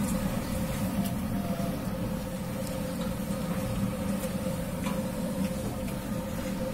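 Jilapi frying in a wide pan of hot oil: a steady hiss over a constant low hum, with a few light clicks as the metal stick knocks the pan.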